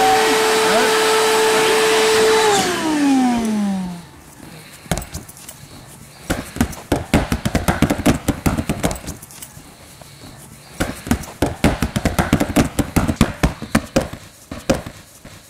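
An air blower pumping into a giant clear plastic walking ball through a hose runs with a steady whine, then switches off about two and a half seconds in, its whine falling in pitch as it spins down. After that comes an irregular patter of slaps, knocks and crinkles of the thin plastic as chimpanzees push and pound on the ball with their hands.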